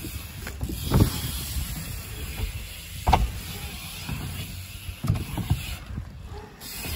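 BMX bike tyres rolling over wooden ramps, a steady low rumble with a few sharp knocks as the wheels hit the wood, the loudest about three seconds in.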